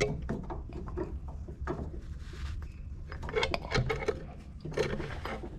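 Metal hand tool working a stabilizer link on a Renault Sandero's front suspension: irregular clicks, clinks and knocks of metal on metal, busier about three and a half seconds in and again near the end.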